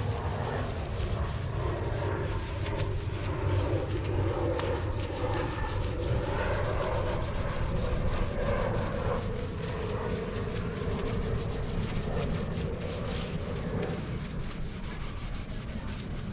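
Scrub sponge rubbing back and forth over a box truck's painted metal side panel, wiping off old lettering glue loosened with Easy-Off oven cleaner, over a steady low rumble. The rubbing fades near the end.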